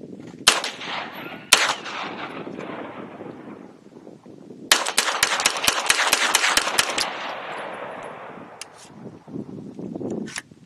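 9mm blowback AR pistol with a tungsten-weighted bolt carrier and short buffer being fired: two single shots about a second apart, then a fast, even string of about a dozen shots lasting some two and a half seconds, with echo trailing off after. The gun cycles every round without a hitch.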